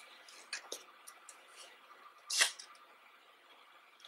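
Pages of a photobook turned by hand: light paper clicks and rustle, then one sharp paper snap about two and a half seconds in.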